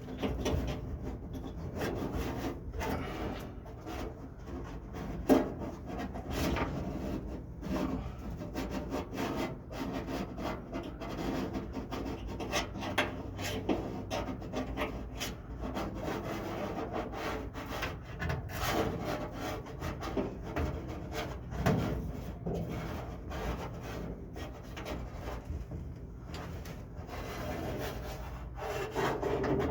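Irregular scraping, rubbing and clicking of a screwdriver working a small seat-belt anchor bracket around inside a truck's hollow sheet-metal B-pillar, with a few sharper knocks along the way.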